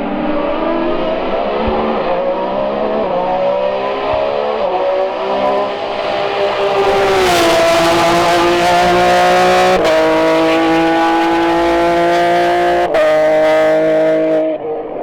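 Race car engine at full throttle on a hillclimb, its revs rising and shifting up through the gears several times, getting louder about seven seconds in as it comes close. The sound cuts off suddenly near the end.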